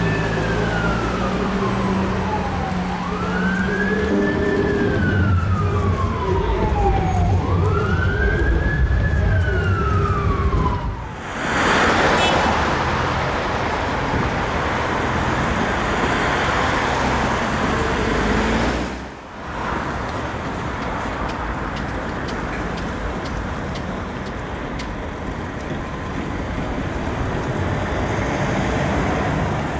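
Fire engine siren wailing in slow cycles, three rising-and-falling sweeps, each rising quickly and falling away slowly, under a low engine rumble. About a third of the way through it gives way to loud engine and road noise as the Scania P360 fire truck passes close, then to steady city traffic.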